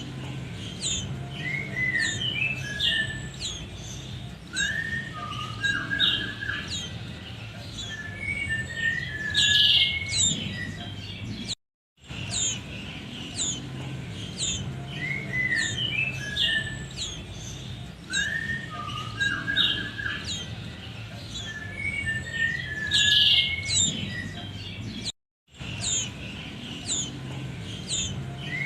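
Young common iora (cipoh) chirping and calling, quick high chirps and short down-slurred whistles in rapid succession over a steady low hum. The sequence breaks off twice and starts over.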